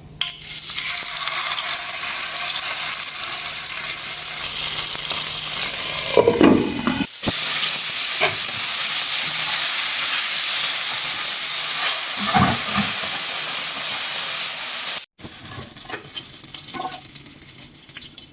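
Food sizzling steadily in hot coconut oil in a pan, with a couple of brief knocks from stirring. The sizzle breaks off abruptly twice and is quieter for the last few seconds.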